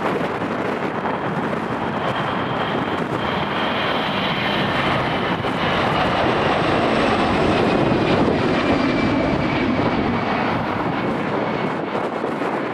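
Jet airliner taking off. Its engine roar swells to a peak a little past the middle, and a thin whine slides slowly downward in pitch as it passes.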